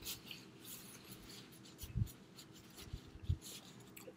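Paper napkin crinkling and rustling softly as it is crumpled in the hands, with two soft low thumps about two and three seconds in.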